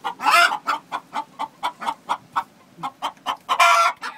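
Hens clucking in quick short notes, with two louder, longer calls, one just after the start and one near the end.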